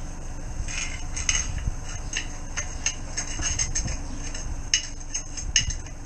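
Tools and metal fittings clinking and tapping as a drain chamber is worked on by hand: irregular sharp clicks, sometimes several a second, over a low steady rumble.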